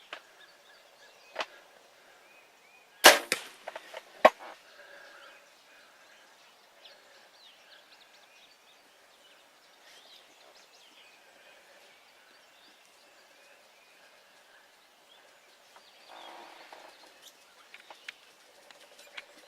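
A bow being shot at a turkey: a loud, sharp snap of the bowstring about three seconds in, then a second, quieter sharp crack about a second later. Faint bird calls run on around it.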